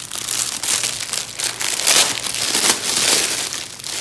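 Clear plastic film crinkling and crackling in irregular bursts as it is handled in the hands.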